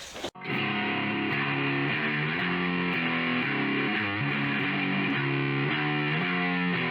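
Outro music: distorted electric guitar music starting abruptly a moment in, steady and loud.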